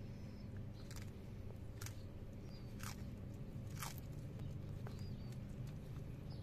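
Tortoise biting and crunching a romaine lettuce leaf: about four crisp crunches over the first four seconds, over a steady low hum.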